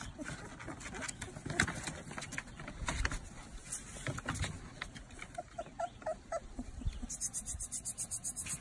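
Puppies about four weeks old scrabbling over crinkling kraft paper, with a short run of small high squeaks past the middle. A fast, even high ticking comes in near the end.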